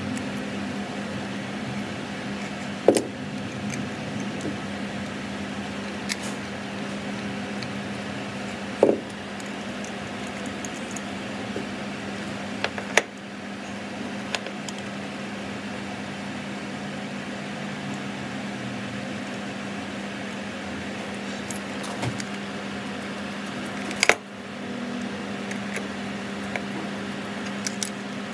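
Small clicks and clinks of a Phillips screwdriver and tiny screws being worked into an IAME KA100 reed cage, a handful spread out over a steady low hum.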